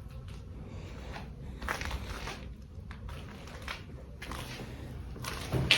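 Footsteps crunching over debris on a floor, in scattered short bursts, with a louder clatter near the end from an object thrown across the room.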